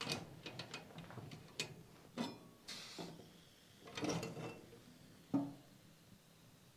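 Clinks and knocks of a copper coffee pot and metal mug being handled on a wood stove top: a scatter of sharp taps, some with a short metallic ring, the loudest knock about five seconds in.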